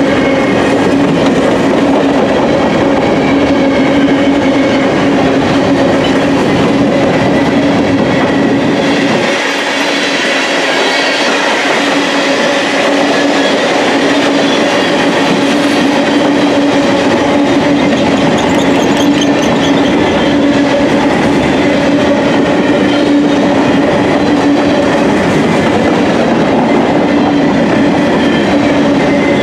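Covered hopper cars of a freight grain train rolling past at close range: the steady loud rush and rumble of steel wheels on rail, with a steady hum running through it.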